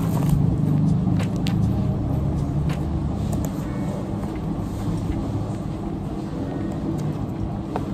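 A steady low rumble, with a few short light clicks and rustles from a tablet case and its plastic packaging being handled, mostly in the first half.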